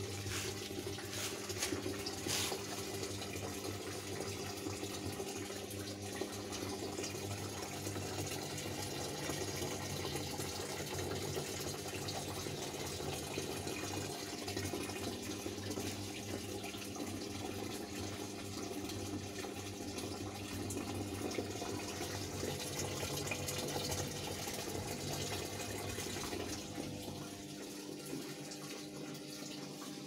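Water running steadily into the tub of a Polytron Zeromatic single-tub top-loading washing machine during a fill, with a steady electrical hum. The level drops slightly near the end.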